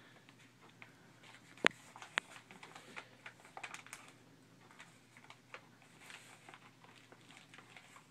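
Gift paper crinkling and tearing in a child's hands: scattered soft crackles, with two sharper snaps about one and a half and two seconds in.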